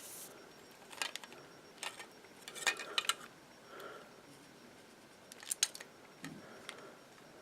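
Small plastic gears and parts of a toy RC car clicking and tapping as they are pried out and handled, a handful of scattered clicks.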